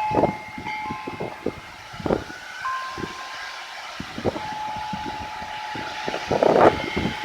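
Gusty severe-thunderstorm wind buffeting the microphone in uneven surges, the strongest about six seconds in. Over it, several high ringing tones each hold for a second or more.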